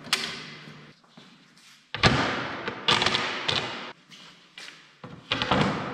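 A wooden sliding frame runs on metal drawer slides as it is pushed shut. Then come a series of loud wooden knocks and thuds, with a sliding clatter, as slatted ash panels are handled against the bench frame.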